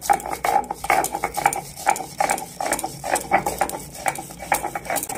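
Stone roller (nora) grinding mustard seeds and green chillies on a flat stone slab (sil): a gritty stone-on-stone scraping in quick back-and-forth strokes, a few a second.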